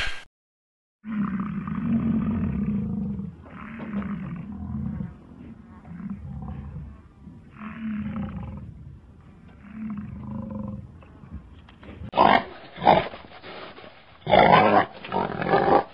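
A large hoofed animal's low calls, about five in a row, followed near the end by pigs squealing and grunting in louder, harsher bursts.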